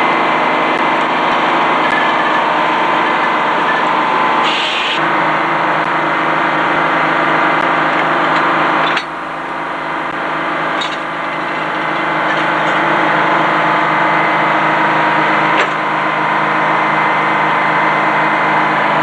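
Antique Frick circular sawmill running: its power unit and big saw make a loud, steady mechanical din with a low engine hum under it. The sound drops abruptly about halfway through, then builds back up.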